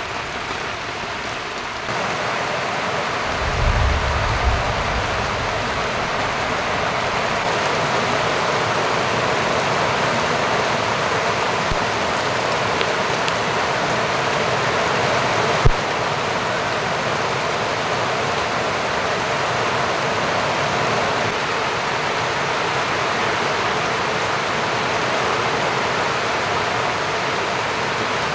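Heavy rain falling steadily on a muddy yard and running off a thatched roof: a continuous, even hiss. A few low thumps come about four seconds in, and a single sharp knock a little past the middle.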